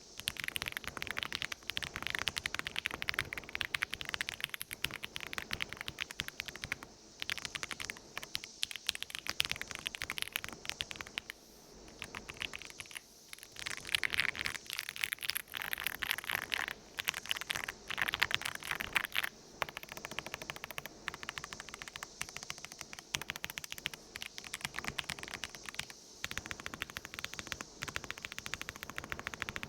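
Typing on a Redragon K688 full-size mechanical keyboard: fast, continuous key clacks with a few brief pauses.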